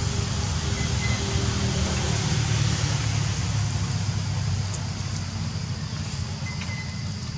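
Steady outdoor background noise: a low rumble with a hiss above it, easing slightly in the second half, with a couple of faint short high chirps.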